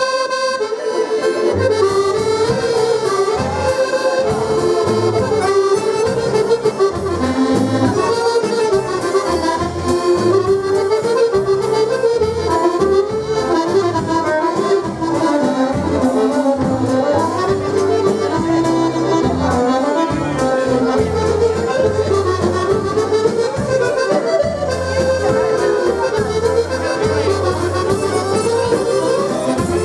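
Two button accordions playing a waltz tune together over a steady repeating bass accompaniment.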